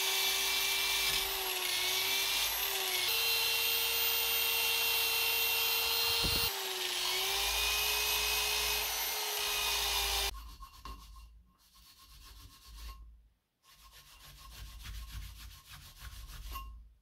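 Electric drill spinning a wire brush wheel over the gasket face of a lawnmower cylinder head, scrubbing off old gasket and deposits to restore the sealing surface. It is a steady motor whine with scratchy brushing, shifting pitch slightly a few times, and stops about ten seconds in. After that comes quieter, broken rubbing as a hand wipes the surface.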